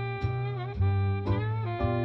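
Background music with saxophone over a bass line and a steady beat.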